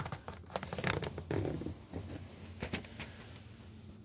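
Fingers picking and scratching at a label stuck on the plastic case of a portable DVD player: a run of light clicks, a brief scraping rustle about a second and a half in, one more click near three seconds, then quieter.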